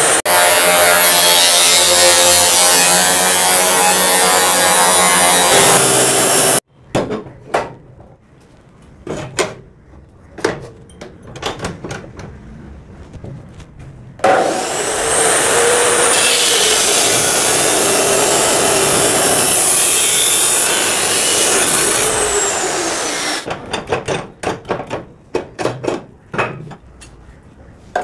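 DeWalt 14-inch abrasive chop saw cutting metal tubing: the motor whines and the wheel grinds through the metal. The sound cuts off abruptly about six seconds in and is followed by scattered knocks and clicks. A second cut starts about fourteen seconds in, runs for about nine seconds, then winds down, with more knocks after.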